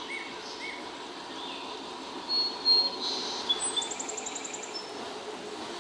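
Songbirds chirping and whistling over the faint, steady hum of an EMD GP9 diesel locomotive approaching, growing a little louder near the end.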